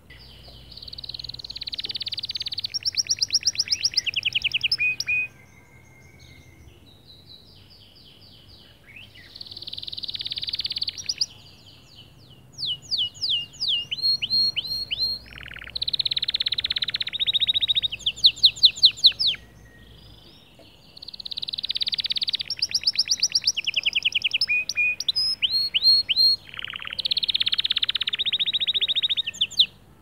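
White male canary singing: long phrases of fast trills and rapid repeated notes, with a few short pauses between phrases.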